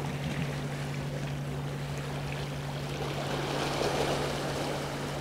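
Small sea waves lapping and washing against shoreline rocks, with a steady low hum underneath.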